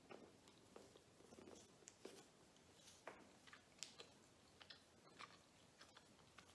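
Faint, close mouth sounds of chewing a soft milk-filled Lindt milk chocolate bear: scattered small wet clicks and smacks.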